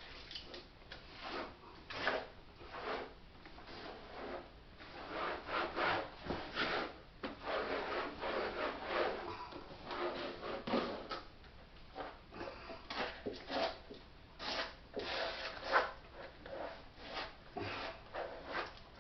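Irregular scraping and rubbing strokes, several in quick runs with short pauses between, made by hand while a chest freezer is being defrosted and cleaned.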